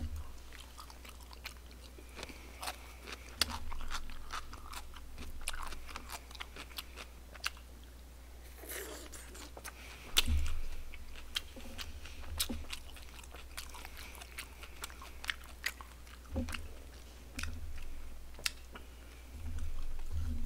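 A man chewing barbecued pork close to a desk microphone, with many short, sharp clicks and smacks throughout.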